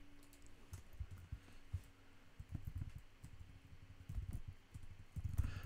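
Faint, irregular keystrokes and clicks on a computer keyboard, heard as soft low thuds, busiest in the second half.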